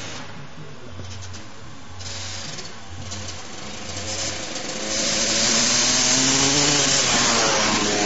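Yamaha 250 YZ motocross bike engine running and revving, growing much louder about five seconds in, its pitch climbing and then dropping near the end.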